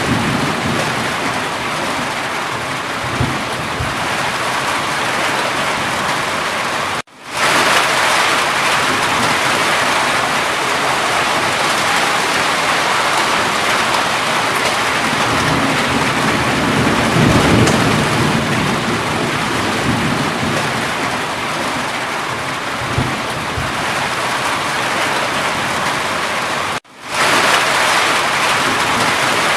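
Steady heavy rain with a few low rumbles of distant thunder. The sound cuts out for a moment twice, once about a quarter of the way in and once near the end.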